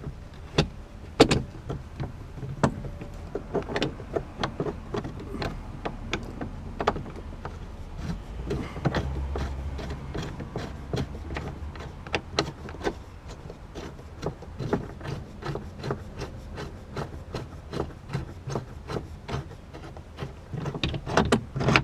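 Irregular clicks and light knocks of a grab handle and its long mounting bolt being turned and worked by hand as the bolt is lined up with its hole. The bolt is hard to line up and slow to go in.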